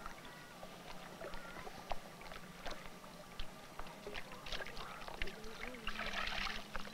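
Wooden pirogue being poled through shallow water: scattered knocks of the pole and hull, with a short rush of water near the end.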